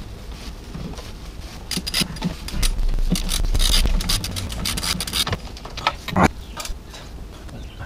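Hand work on an exposed engine cylinder head: scraping and rubbing with many small clicks, busiest from about two to five seconds in, then one sharp knock about six seconds in.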